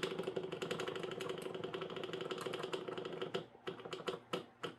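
Rapid button mashing on a timer keypad: fast, even clicks over a steady tone for about three and a half seconds, then a few separate presses.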